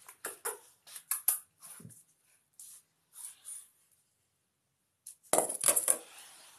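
Irregular sharp clicks and clinks, then a denser, louder clatter lasting under a second about five and a half seconds in.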